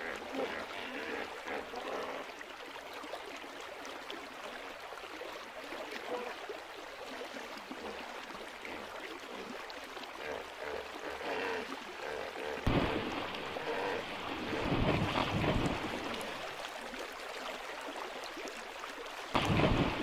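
Water splashing and churning as a hippopotamus moves through a river. The splashing gets suddenly louder about two-thirds of the way in, and again just before the end.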